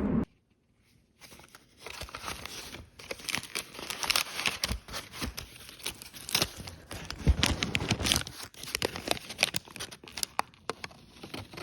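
Irregular crinkling and rustling, full of many short sharp clicks and crackles. It starts about a second in, after a moment of near silence.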